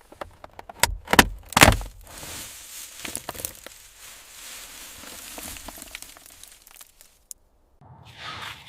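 Hands-on workshop noise: several sharp knocks in the first two seconds, then a rustling, scraping noise with scattered clicks that stops about seven seconds in.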